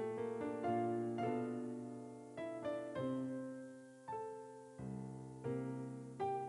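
Background piano music: single notes and chords struck one after another and left to fade.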